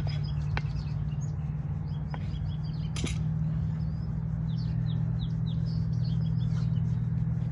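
Small birds chirping over and over in short, falling chirps, over a steady low hum. A few brief sharp knocks or scrapes come through, the clearest about three seconds in.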